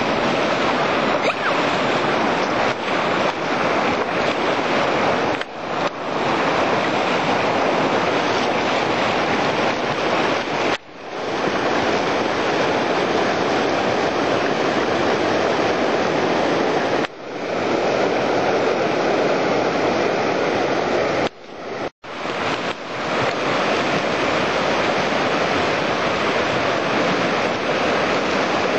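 Steady loud rushing of wind on the microphone and water around a kayak on open water, broken by a few brief dropouts.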